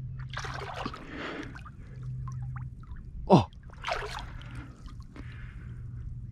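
Hands sloshing and splashing in a shallow muddy pool while feeling for a fish, in two spells. About halfway through, a brief, loud sharp sound drops steeply in pitch.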